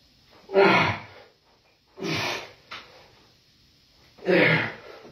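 A man's forceful breaths out, three of them about two seconds apart, one per rep of a dumbbell press; the first is partly voiced, like a grunt.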